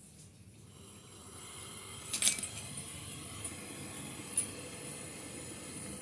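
Steady hiss of gas blowing through refrigerator pipework during flushing. It swells up about a second in, with a sharp click a little after two seconds and a smaller click near four and a half seconds.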